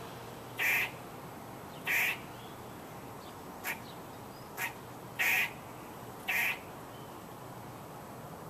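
A squirrel calling repeatedly: six short calls, roughly one a second, two of them briefer than the rest.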